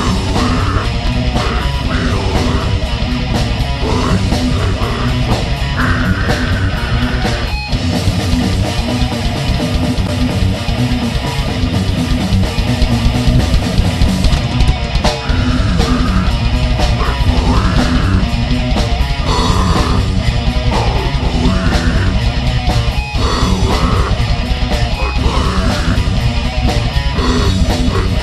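Heavy metal band playing: distorted electric guitars, bass guitar and a drum kit, loud and continuous.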